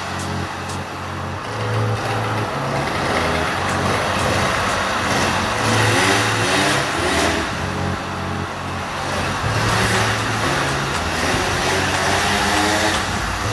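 Customised Honda Dio scooter's small engine revving up and down as it is ridden around.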